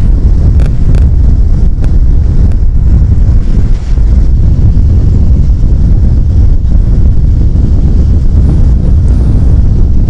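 Steady low rumble of wind buffeting the microphone on a moving two-wheeler, mixed with the vehicle's running on the road.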